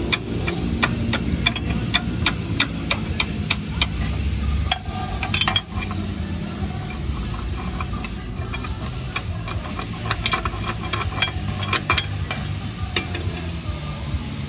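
A vehicle's engine running with a steady low rumble while a rapid, irregular series of sharp clicks and knocks comes from the drivetrain, about two a second and sometimes in clusters. It is a noise that comes with turning the steering wheel, which the mechanic puts down to internal misadjustment of the transmission box.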